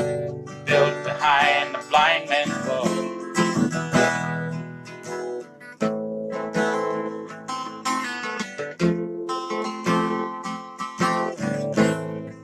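Background song music in an instrumental stretch with no lyrics, carried by strummed acoustic guitar chords in a steady rhythm.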